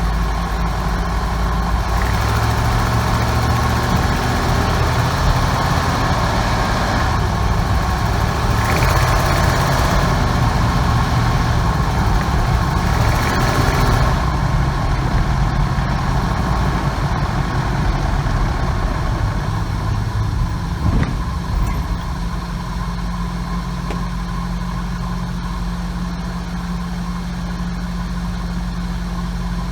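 1998 Ford 5.4-litre two-valve V8 running, louder and busier for the first half, then settling to a steady idle. It carries the cold-start noise that the owner traced to a cracked exhaust manifold between cylinders 6 and 7.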